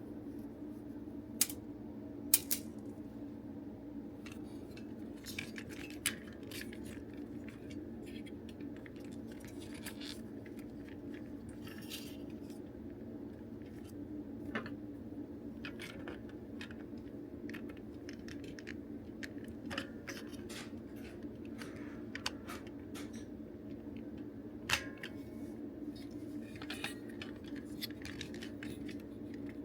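Small clicks, clinks and brief scrapes of plastic toy parts and small screws being handled during disassembly, with a few sharper taps. A steady low hum runs underneath.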